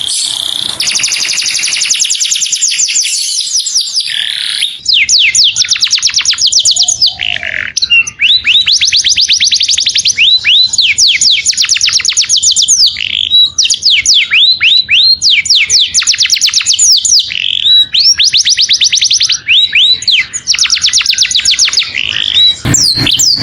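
Canary singing: fast trills of repeated falling notes, in phrases of a second or two with short pauses between them.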